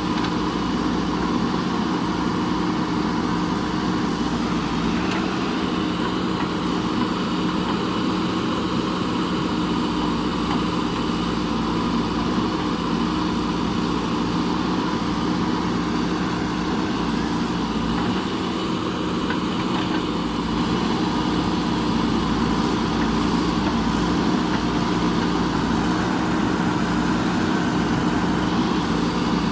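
JCB backhoe loader's diesel engine running at a steady speed, a little louder in the last third.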